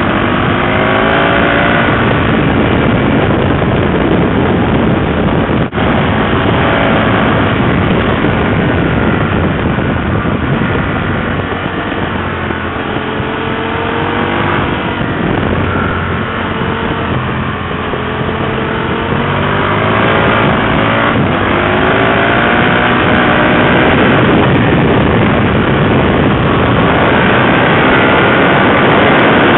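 2007 Aprilia RSV 1000R's 60-degree V-twin through LeoVince aftermarket silencers, accelerating hard, its note climbing in pitch again and again and falling back between climbs as it goes up through the gears, over a steady rush of wind.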